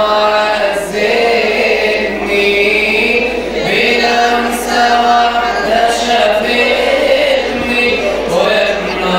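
A man's voice chanting a church hymn into a microphone, amplified through the sound system, in a slow melody with long held notes.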